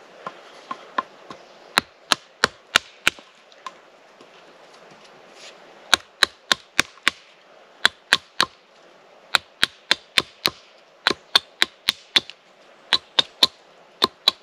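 A small Xforst AG1 hatchet chopping at the end of a wooden stick to point it. It makes a rapid series of short, sharp chops, mostly in quick clusters of two to five, with a brief lull early on.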